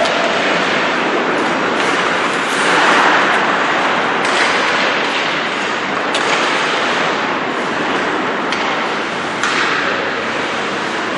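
Ice hockey play on a rink: steady scraping of skate blades on the ice, with a few sharp clacks of sticks and puck.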